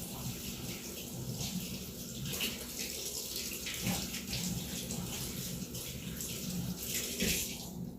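Water running steadily, stopping just before the end.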